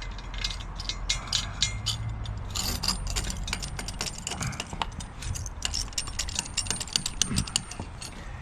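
Small metal pieces clinking and jangling: many sharp clicks in quick, uneven succession.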